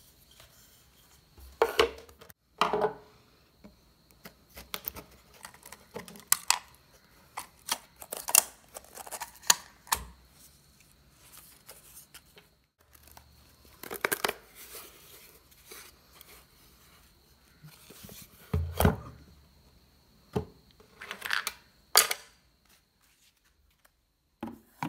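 Irregular clicks, knocks and scrapes of a dirt-caked compression driver's metal housing and magnet assembly being handled and taken apart on a wooden table, with a few louder knocks.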